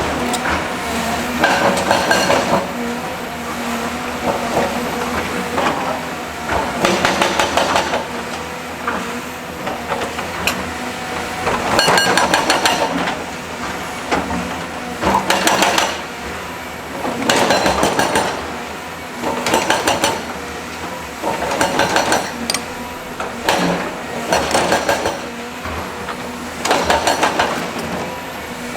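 Heavy construction machine running steadily, with bursts of rapid metallic clanking about a second long every few seconds.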